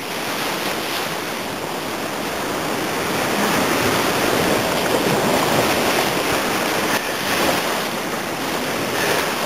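Whitewater of a Class III-IV river rapid rushing loudly around a raft, heard close from a helmet camera. It builds over the first few seconds and then holds steady.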